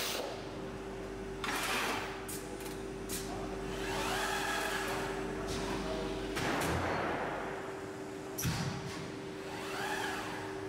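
Automated sheet-metal handling and prebending machinery running: a steady electrical hum, servo drives whining up and then down in pitch twice, and short hisses of compressed air from the pneumatic grippers. A thump comes about eight seconds in.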